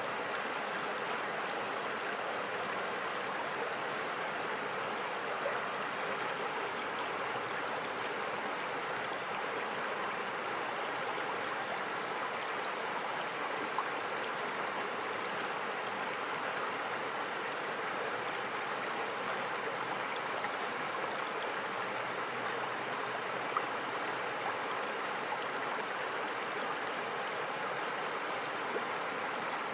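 River water rushing steadily over a shallow, rippling stretch, an even hiss of flowing water, with a few faint clicks here and there.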